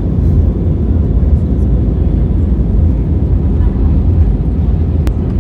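Steady low rumble of a jet airliner cabin in flight, engine and airflow noise heard from a window seat, with a single sharp click near the end.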